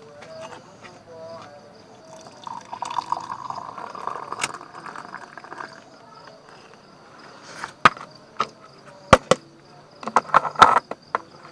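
Liquid poured from a white plastic flask into a small cup for a few seconds, followed by several sharp clinks as cups and the flask are set down. Crickets chirp steadily in the background.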